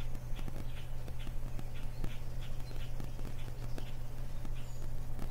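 Steady low electrical hum with irregular crackles and clicks: recording static, which the speaker puts down to problems with her computer.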